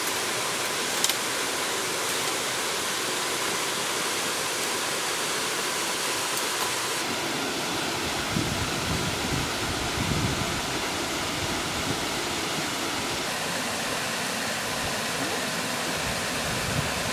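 Steady rushing of a small waterfall and stream pouring over rocks, with a few brief low rumbles about halfway through.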